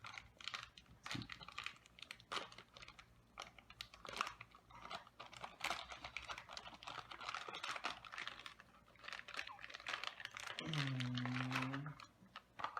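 Irregular crinkling, rustling and clicking of plastic and cardboard packaging being handled while a boxed vinyl art-toy figure is unpacked. A short low hum of a voice comes near the end.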